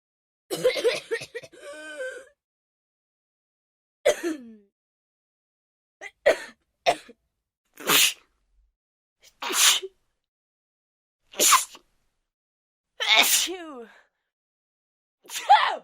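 A person sneezing again and again: short, sharp sneezes one to two seconds apart, some ending in a falling voiced tail.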